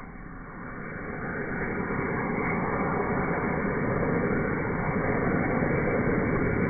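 Homemade sugar rocket motors burning: a steady hissing rush that builds over the first couple of seconds, then holds.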